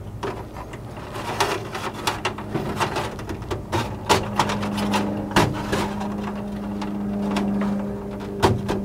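Electrical wire being pulled back through a hole in a Jeep hood's inner panel: irregular scraping and light clicks as the wire and its connectors rub and tap against the hood. A steady low hum comes in about four seconds in and runs on under it.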